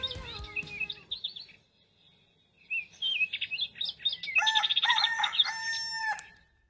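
Songbirds chirping in short high calls, then a rooster crowing for about two seconds in the second half, the loudest sound here.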